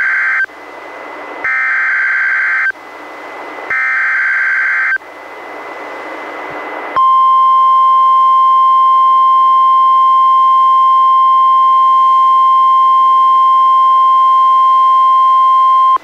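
NOAA Weather Radio emergency alert from a weather radio receiver. The SAME header's data bursts sound as a harsh warbling screech: the end of one, then two more, each about a second long, with radio hiss between. About seven seconds in, the steady 1050 Hz warning alert tone starts and holds, the signal that a warning message follows.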